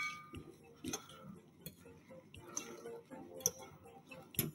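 Metal utensils tossing a watercress salad in a ceramic bowl: light, irregular clinks against the bowl about once a second.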